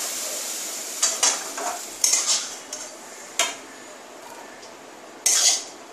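Metal spoon clinking and scraping against a pan and cooking pot as fried green peas are scraped in: a handful of sharp clinks, then the loudest, a short scrape, about five seconds in.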